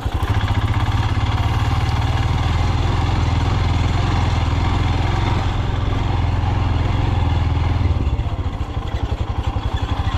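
Royal Enfield Himalayan's 411 cc single-cylinder engine running steadily on the throttle, then easing off about eight seconds in.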